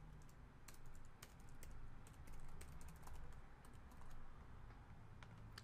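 Faint typing on a computer keyboard: an irregular run of quick keystrokes.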